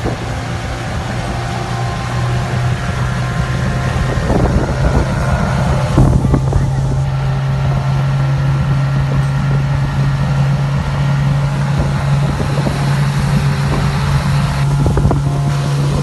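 Small river boat's outboard motor running steadily under way, a constant low engine hum with water rushing past and wind buffeting the microphone.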